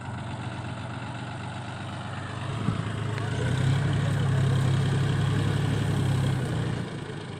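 John Deere tractor's diesel engine running, pulling harder and rising in speed from about three seconds in while the rear hydraulic loader bucket scrapes sand, then easing back near the end.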